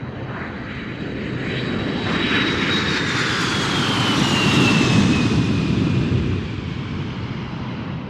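An aircraft flying past: a rushing engine noise that swells to a peak about five seconds in and then fades, with a high whine that falls in pitch as it goes by.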